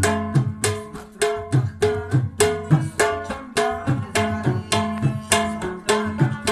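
Rabab being plucked in a quick, even run of notes, about three to four strokes a second over a steady held tone, with a deep thud under some of the strokes.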